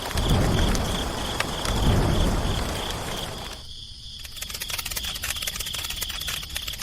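Insects chirping steadily over a low, swelling rumble. About three and a half seconds in, the sound cuts out briefly and a fast, even clicking begins.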